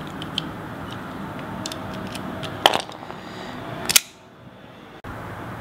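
Small metal clicks of a QSP Daeva folding knife being handled and its blade swung on its ball-bearing pivot, which is set a bit too tight. There is a sharp click about halfway through and another about four seconds in, after which the sound drops to a faint hiss and cuts off.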